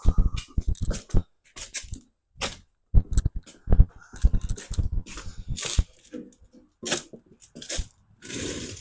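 Irregular knocks, clunks and scrapes of a sheet-metal tractor hood being shifted and settled on a wooden board, with a few heavier thumps and a longer scrape near the end.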